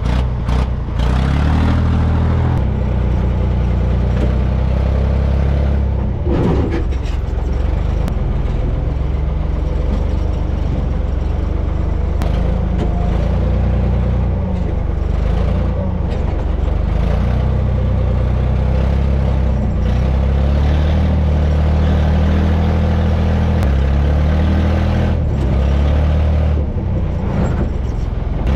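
Old Ford backhoe's engine running loud and steady, heard from the operator's seat, its pitch rising and falling several times as the tractor-loader shoves rocks toward a hole.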